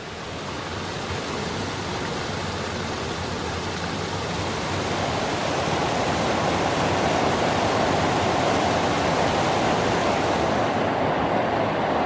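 Waterfall rushing and splashing over rocks into a pool: a steady rush of water that grows louder over the first half, then holds.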